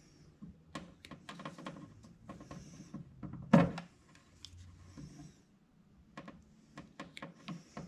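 Handheld wire crimper working blue insulated connectors onto 14-gauge wire: scattered clicks, snaps and rustles of tool and wire handling, with one louder knock about three and a half seconds in.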